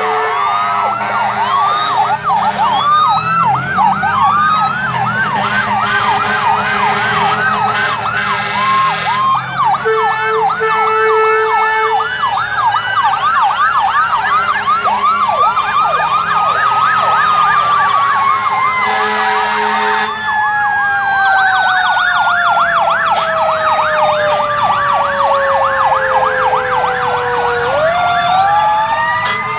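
Several fire engine and ambulance sirens sounding at once as the trucks pass in procession: fast yelping sweeps overlap slower wails, and near the end one long wail winds steadily down in pitch. A few long, steady horn blasts cut in along the way.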